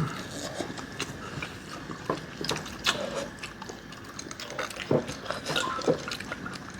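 Spicy ramen noodles being slurped and chewed, wet mouth sounds with scattered light clicks throughout.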